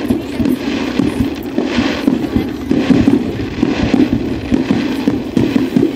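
Aerial fireworks shells bursting in a rapid, unbroken run of bangs and crackles.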